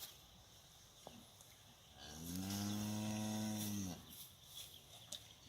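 Cow mooing once: a single long moo of about two seconds, starting about two seconds in, rising at the onset and dropping off at the end.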